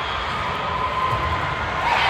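Steady hum and background noise of a large sports hall during a volleyball rally, with a dull thump about a second in.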